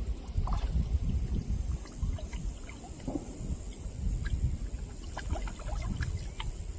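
Catfish and bluegill feeding at the surface of a pond in a frenzy: many small scattered splashes and slurps, over wind rumbling on the microphone.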